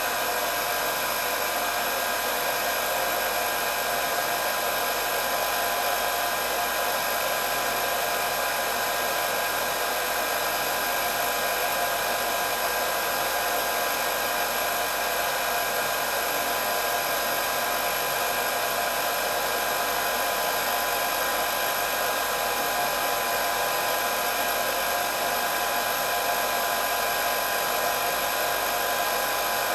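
Electric hair dryer running steadily: a constant whirring rush of blown air with a few steady whining tones in it, unchanging throughout.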